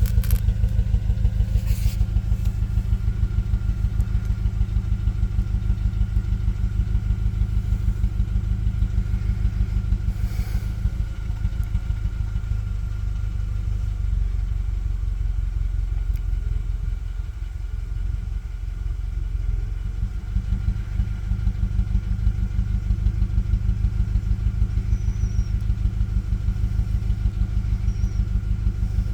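Toyota 2ZR-FAE 1.8 litre Valvematic inline-four engine running with a steady, rapid pulsing beat. The owner reports that this engine shakes, with an occasional misfire on cylinder 4, and has not found the cause.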